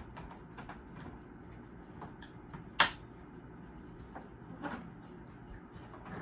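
Plastic parts of a vacuum cleaner being handled and fitted back together: scattered light clicks and knocks, with one loud sharp snap about three seconds in.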